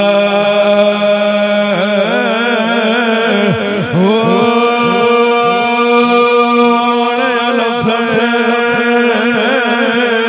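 A man chanting a verse in a drawn-out melodic voice through a microphone and loudspeakers. He winds through ornamented notes for the first few seconds, then holds one long, wavering note from about four seconds in.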